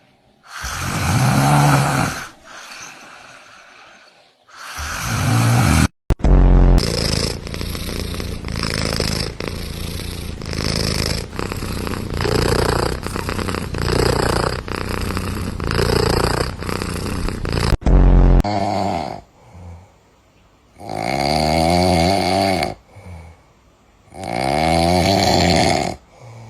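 Sleeping cats snoring, one after another. First come long, drawn-out snores, then a quick, even run of short snores at nearly two a second. Near the end there are slower snores with a clear pitch.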